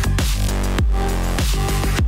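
Electronic background music with a heavy bass and beat, its bass notes repeatedly sliding down in pitch.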